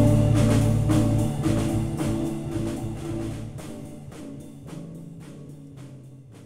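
Instrumental band music on drum kit and guitar, fading out steadily to the end of the piece. The sustained low guitar notes drop away partway through, while regular drum and cymbal hits carry on, growing fainter.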